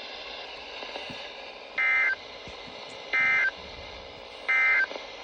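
Three short bursts of EAS SAME digital data tones, about a second apart, over a steady radio hiss. This is the end-of-message code sent three times to close a NOAA Weather Radio alert.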